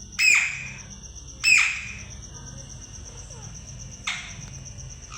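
Pet parrot squawking: three short, shrill calls that drop in pitch, the first two loud and the third, near the end, much fainter.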